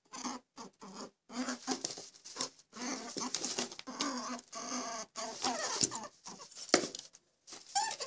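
Rabbit squeaking in a rapid run of short calls, broken by brief pauses.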